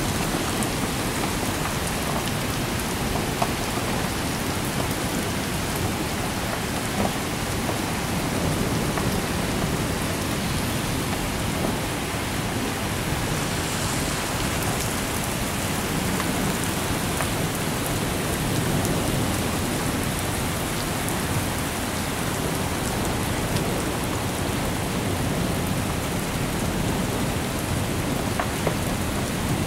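Heavy rain falling steadily: a continuous hiss with scattered sharp taps of drops hitting nearby surfaces.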